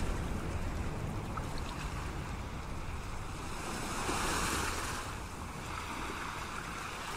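Sea surf washing against a rocky shore, with wind rumbling on the microphone. The rush swells briefly about four seconds in.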